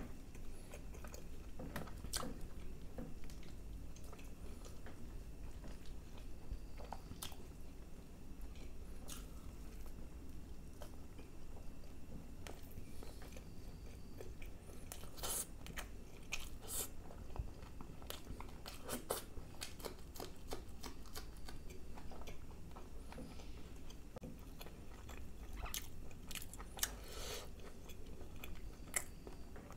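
Close-miked chewing and biting of spicy chicken masala curry and naan, with scattered crisp crunches from raw onion and cucumber salad, over a faint low hum.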